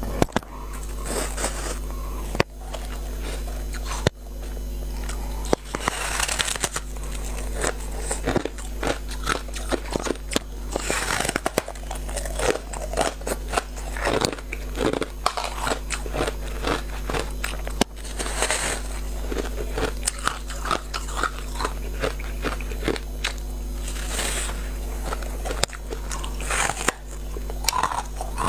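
Close-up crunching of someone biting into a block of frozen ice: a big crunchy bite about every five to six seconds, each followed by a run of quick, crackly chewing crunches. A steady low hum lies underneath.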